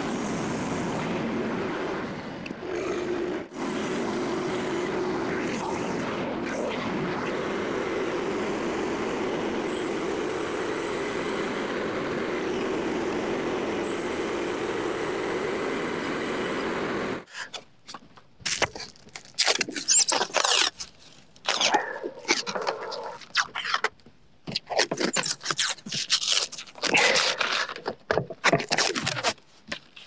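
Frontier OS27 portable bandsaw mill running steadily. It stops abruptly about 17 seconds in, and irregular sharp clacks and scrapes follow as freshly sawn oak stickers are handled and stacked on the mill bed.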